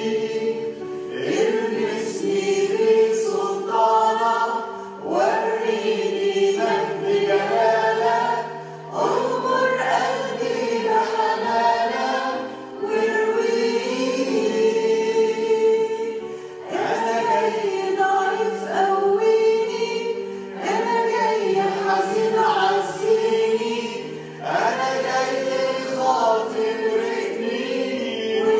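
A small group singing an Arabic Christian hymn through microphones, in phrases of a few seconds with short pauses between, over sustained held chords that shift from phrase to phrase.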